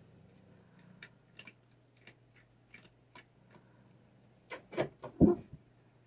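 Light, irregular clicks of a long-handled plastic brush rubbing a cat's cheek and chin, the bristles catching at its mouth. About four and a half seconds in comes a short cluster of louder knocks and one thump.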